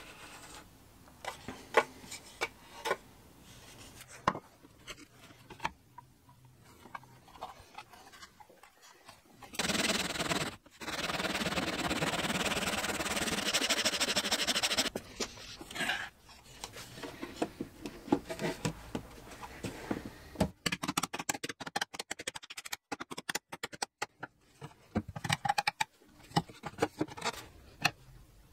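Hand tools working wood: light scratches and clicks as a knife scores veneer along a steel rule, then about five seconds of steady sawing from a flush-cut saw trimming a small wooden piece level with the surface. Near the end comes a run of quick clicks and taps.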